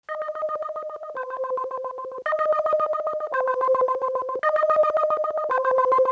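Electronic two-tone ringing tone, pulsing rapidly and switching between a higher and a lower pitch about once a second.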